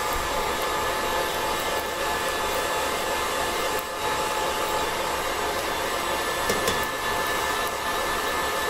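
KitchenAid stand mixer motor running steadily with the meat grinder attachment fitted, a constant whir as steak is fed through the grinder. A few light clicks come about two-thirds of the way through.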